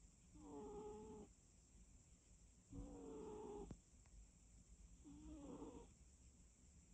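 A cat snoring in its sleep: three pitched snores about two seconds apart, each lasting about a second, with a faint click just after the second.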